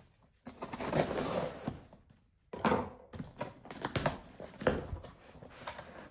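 A scissors point scraping along the packing tape of a cardboard shipping box, slitting it. About two and a half seconds in the tape is ripped back, followed by crackling and rustling as the cardboard flaps are pulled open.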